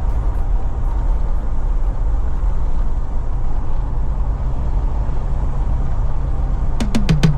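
Steady low rumble of a car driving on a sealed road, engine and tyre noise heard from inside the cabin. Near the end, a run of sharp clicks and a falling sweep as electronic music cuts in.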